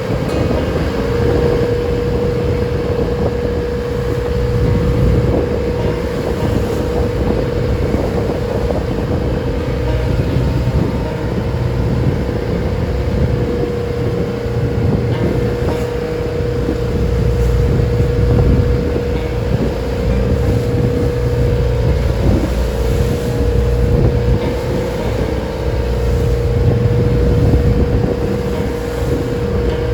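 Wooden passenger boat's inboard engine running steadily: a low rumble with a constant hum, with wind buffeting the microphone.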